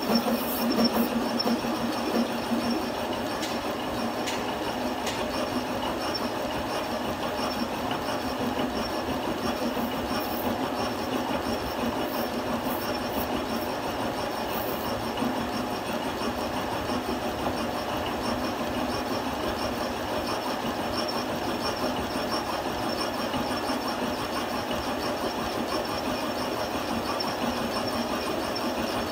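Metal lathe running with a spinning thread tap hobbing teeth into a worm-wheel blank: a steady mechanical grinding with a thin high whine.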